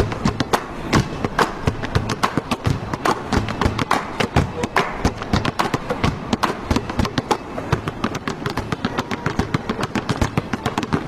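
Game noise in a small gym: a dense, irregular run of sharp knocks and thuds, several a second, from a basketball bouncing on the hardwood floor and players' feet, echoing off the walls over a steady crowd hubbub.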